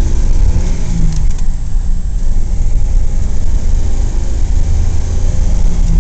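1941 Plymouth's flathead straight-six engine running as the car drives along, heard from inside the cabin as a loud, steady deep rumble of engine and road noise.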